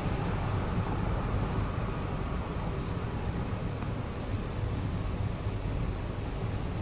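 E2 series Shinkansen passing on the elevated track, a steady low rumble of the train running along the rails.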